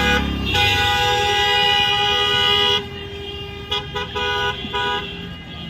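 A horn blowing several notes at once: one long blast of nearly three seconds, then three short toots.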